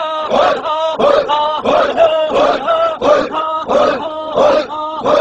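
Male voice making rhythmic, chant-like vocal noises: short pitched calls repeated about twice a second with a bouncing, sing-song rise and fall.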